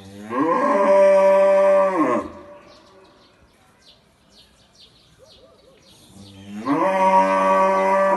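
Young black cow mooing twice: two long moos of about two seconds each, the first right at the start and the second about six seconds in, each sliding up in pitch, holding steady, then dropping off.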